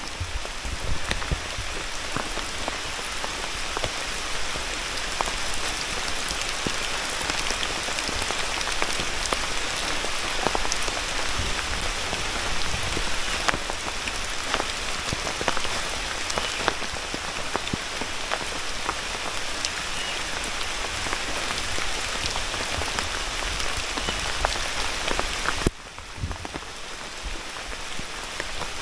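Heavy rain falling through a forest canopy, softened by the trees overhead so that it sounds like ordinary rain, with individual drops tapping close by. It gets a little quieter about 26 seconds in.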